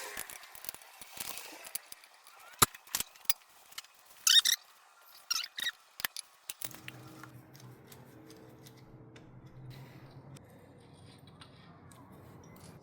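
Metal clicks and knocks from hand tools and parts being fitted, with a few short squeaky scrapes in the middle. A steady low hum comes in about two-thirds of the way through.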